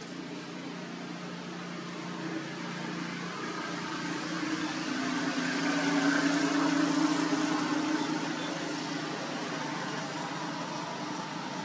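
A steady low motor hum, with a rushing noise that swells to a peak about six to seven seconds in and then fades, like a motor vehicle passing at a distance.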